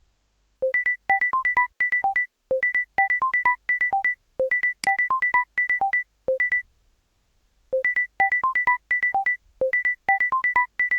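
Phone ringtone previewing: a synthesized tune of short, clean beeping notes, one phrase repeated about every two seconds. It stops for about a second a little past halfway, then starts over.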